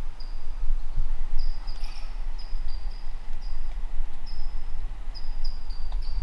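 Low rumble of wind buffeting the microphone, with a string of short, high, slightly falling chirps repeating irregularly, about two or three a second.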